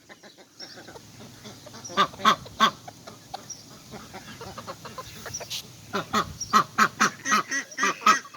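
Ducks quacking: short, loud, repeated calls, a few about two seconds in and a quick run of them over the last two seconds.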